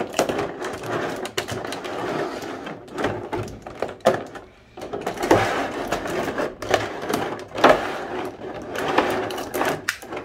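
Packaging being handled: continuous rustling and crinkling with many small clicks and knocks as a PVC figure is taken out of its plastic packing, with a short pause about halfway through.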